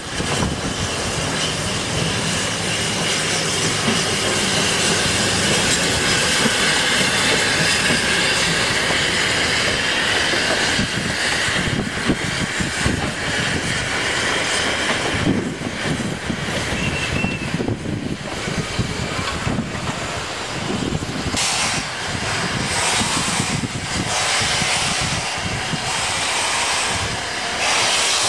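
Narrow-gauge steam train moving slowly past, its wheels clattering over rail joints and squealing on the curves. Steam hisses more strongly in the later part.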